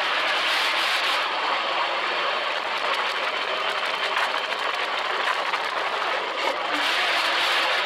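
Sand rail (dune buggy) engine running as the car drives over sand dunes, heard as a steady dense rush that swells for the first second or so and again near the end.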